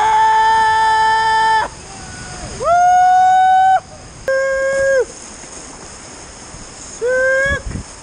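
Kayakers whooping: four long, loud held yells, the first the longest and the later ones sliding up into the note, over the steady rush of whitewater.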